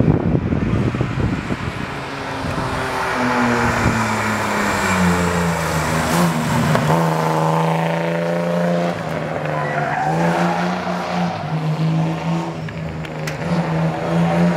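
A car engine held at high revs as the car slides through a corner, its note climbing, holding, dipping briefly and climbing again, with tyres squealing. It opens with a loud rough exhaust rumble.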